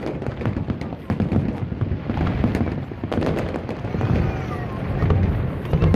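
Aerial fireworks bursting in quick succession: dense crackling and popping over deep booms, with a brief gliding whistle about four seconds in.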